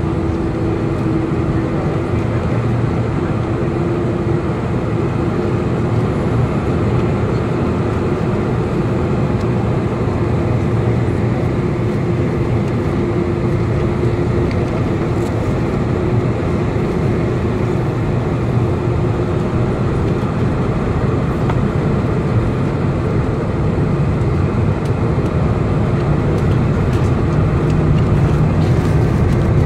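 Jet airliner cabin noise heard beside the wing: the engines run at low thrust with an even rush and a steady hum while the plane taxis. In the last few seconds a lower hum strengthens and the noise grows slightly louder as the engines begin to spool up for take-off.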